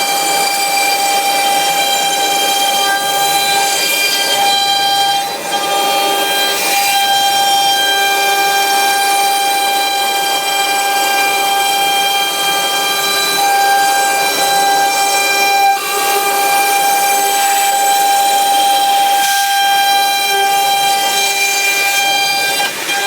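CNC router spindle running at 24,000 rpm while a 6 mm end mill cuts 19 mm MDF: a steady high whine with a stack of overtones over the hiss of cutting. The whine briefly drops away twice, about 5 and 16 seconds in.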